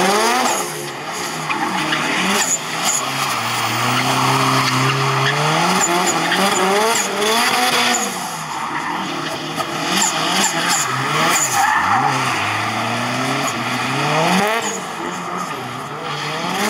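Drift car engine revving hard, its pitch climbing and dropping again and again, over a continuous screech of tyres sliding on asphalt.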